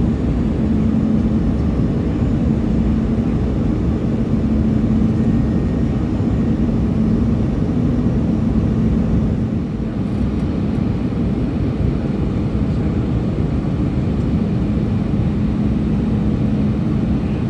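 Airbus A319 cabin noise during the descent on approach: steady rumble of the jet engines and rushing airflow heard from a window seat beside the wing. A steady low drone rides on top; it fades about halfway through and comes back near the end.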